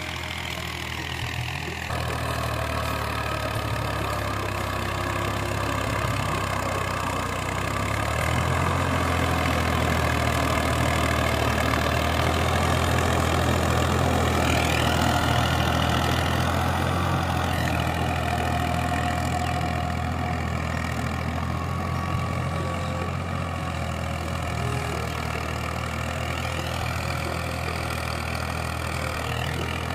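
Tractor engine running steadily, a low, even engine note that gets somewhat louder about two seconds in.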